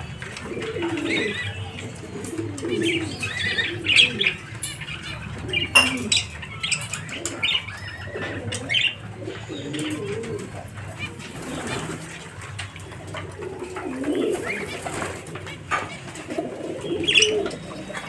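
Domestic pigeons cooing over and over, low and throaty, with higher bird chirps in between and a few sharp knocks around four and six seconds in.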